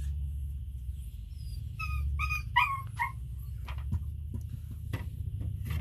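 An animal's short, high whining calls, about five in quick succession with bending pitch about two seconds in, over a steady low hum, followed by a few light clicks.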